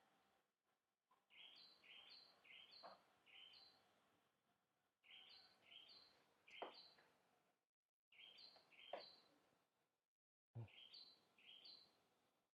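Faint bird song: a bird repeating short rising chirps in bouts of three or four, about three a second. A few sharp knocks stand out over it, about 3, 6.5, 9 and 10.5 seconds in, and the sound cuts out to dead silence briefly several times.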